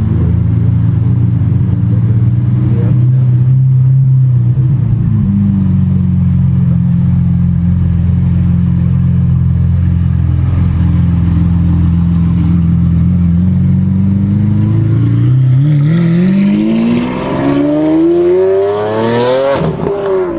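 A car engine idles loudly and steadily, then revs up with a steadily rising pitch over the last few seconds, peaking and falling away right at the end.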